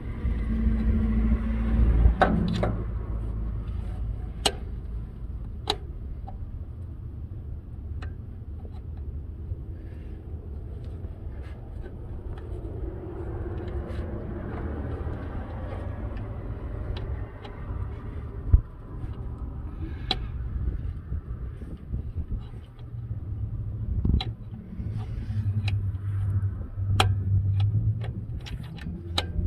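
Steady low rumble with scattered sharp metallic clicks and clinks of tools and parts as a mechanical fuel pump is worked into place on an old pickup's engine.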